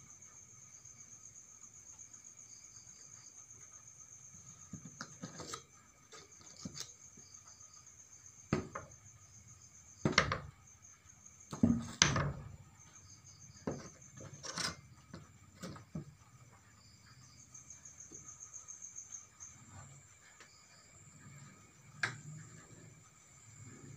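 Crickets chirping steadily, overlaid by a string of irregular sharp knocks and clatters. The loudest come about ten and twelve seconds in, and a last one comes near the end.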